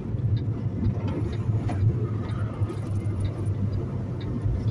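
Semi-truck's diesel engine running steadily under way, a low drone heard from inside the cab, with tyre and road noise.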